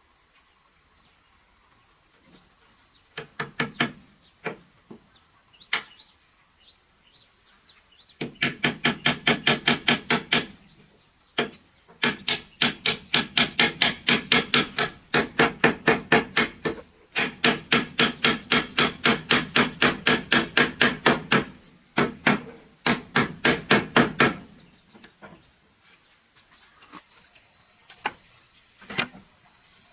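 Hammer striking wood in fast runs of about five blows a second, each run lasting a few seconds with short pauses between. A few single knocks come before and after. Insects shrill steadily in the background.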